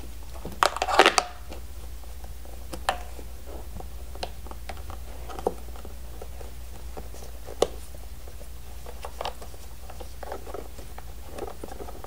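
Plastic toy parts of an Octonauts Octo Lab playset being handled as its hoses are wrapped around the base: a burst of clicks and rustling about a second in, then a few single light knocks spread out over the rest.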